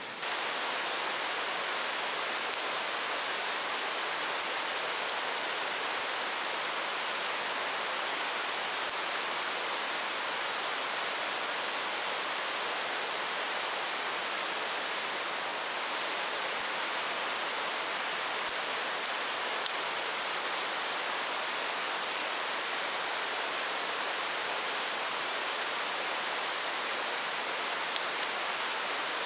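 Steady rain falling, an even hiss, with a few scattered sharp ticks.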